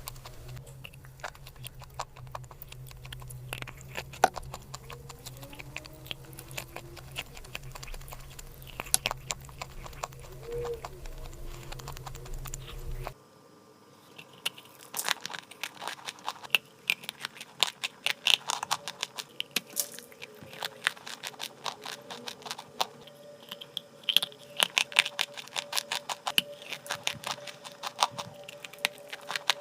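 Dry chalk clay crunching, a steady run of many small sharp crackles. A low hum stops abruptly about 13 seconds in, and the crackles come denser and louder after it.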